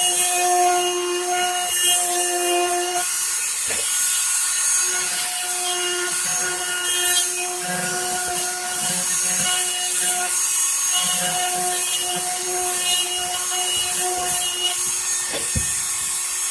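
Dremel rotary tool with an engraving cutter bit carving into birch wood: a steady high motor whine over a grinding hiss. The whine drops away and comes back a few times, about 3 s in and again around 10 s, as the bit is pressed into and eased off the wood.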